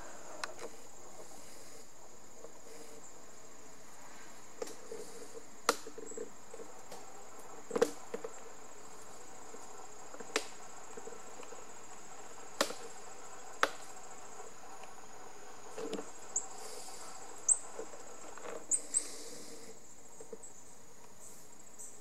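Insects trilling, a steady high-pitched drone, with a dozen or so sharp clicks scattered through it and a few short high chirps in the latter part.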